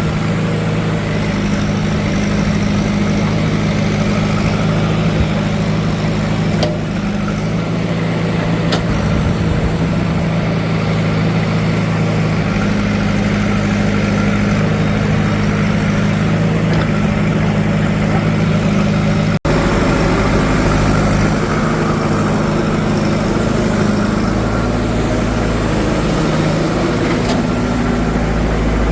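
Heavy diesel engine running steadily, with a brief dropout in the sound about two-thirds of the way through.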